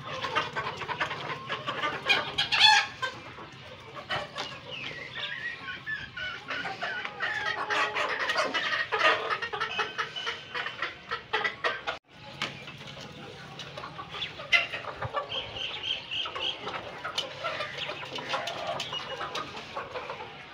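A flock of chickens clucking and calling together, many short overlapping calls, with one louder call about two and a half seconds in. The sound drops out for a moment about halfway.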